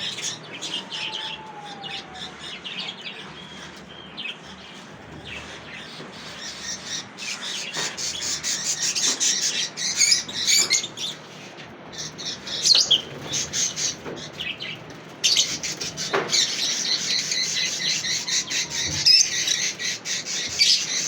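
Lovebirds chirping: rapid, high chirps repeated many times a second, getting louder and busier about halfway through.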